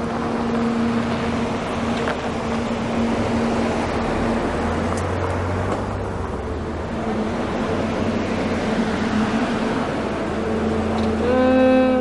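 A Citroën sedan driving slowly into a courtyard and pulling up, its engine running with a steady hum over tyre noise. Music with strings comes in near the end.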